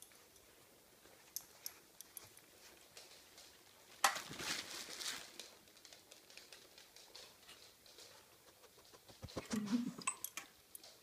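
A small dog moving about on carpet: scattered light taps and scuffs of paws and claws, with a louder rustling scuffle about four seconds in and another flurry of taps near the end.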